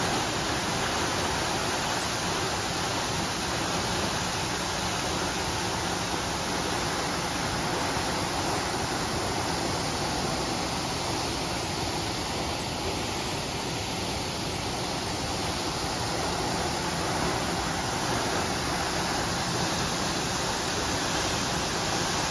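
Water gushing from a fire hydrant knocked off by a vehicle, shooting high into the air and raining down on wet pavement: a steady, even rush of water, slightly softer midway.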